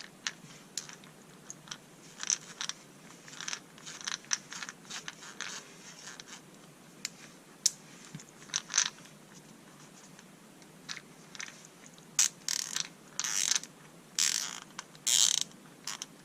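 Gearwrench ratchet screwdriver's ratchet clicking: scattered single clicks, then several short, rapid ratcheting runs near the end.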